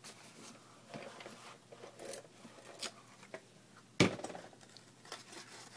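Light rustling and small taps of cardstock being handled and pressed together by hand, with one sharp click about four seconds in.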